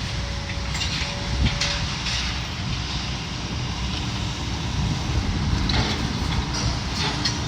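Heavy demolition machinery working: a steady low engine rumble with scattered knocks and scrapes of debris and metal being pulled from a building.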